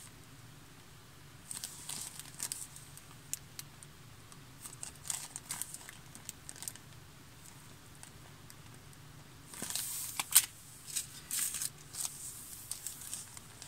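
Small packets of beads and pearls being handled, the packaging crinkling on and off, loudest about ten seconds in.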